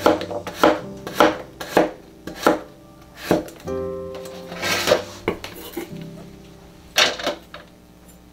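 Knife chopping on a cutting board in regular strokes about every 0.6 seconds, giving way to a few scattered knocks and clatters after about three seconds, over background music.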